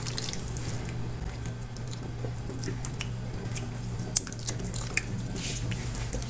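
Wet squishing of a hand rubbing liquid marinade into a raw pork leg in a metal baking tray, with scattered small clicks and a sharper tap about four seconds in, over a steady low hum.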